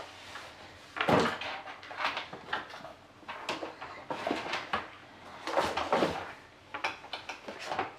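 Small plastic doll-house accessories being handled and set in place, giving irregular clicks, taps and rustles, with the loudest knocks about a second in and around six seconds in.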